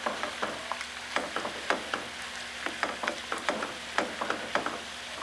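A spoon stirring a pot of chili base thickened with flour and milk, knocking and scraping against the pot in irregular clicks.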